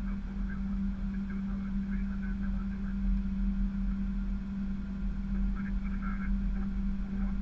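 Steady drone of an airliner in flight heard inside the cockpit: an even low hum with a rumble beneath it.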